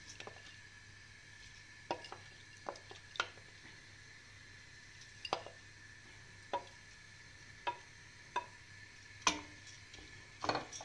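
Wooden spoon knocking and scraping against a glass bowl and a stainless steel pot as washed wheat grains are tipped into hot butter and oil, about ten irregular knocks. A faint sizzle of the wet grains in the hot fat runs underneath.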